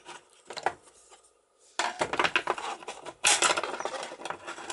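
Steel parts of a boat cabin mortise lock clinking and scraping as they are handled and worked loose: a few light clicks, then from about two seconds in a dense, irregular run of metal clinks and scrapes that grows louder near the end.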